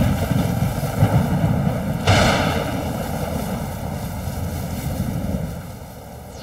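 Cartoon sound effect of rolling thunder: a low rumble that starts suddenly, a sharper crack about two seconds in, then a fade near the end.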